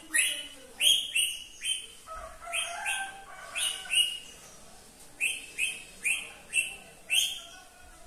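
Caged green parakeet giving a series of short, sharp screeching calls, each dropping in pitch, in two runs of about a dozen in all, with softer, lower chattering between them about two to three seconds in.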